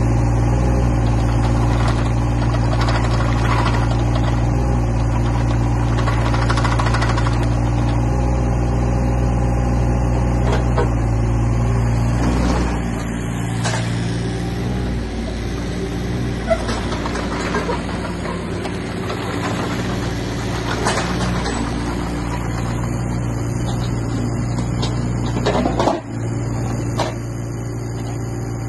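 Volvo EC18C mini excavator's diesel engine running steadily while the machine slews round and tracks away. The engine note drops a little about halfway through, and a few short clunks from the machine come in the second half.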